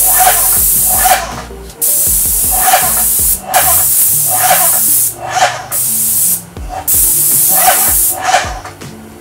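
Graco Magnum ProX19 airless paint sprayer spraying through its hand gun: loud hiss in about five bursts of one to two seconds as the trigger is pulled and released.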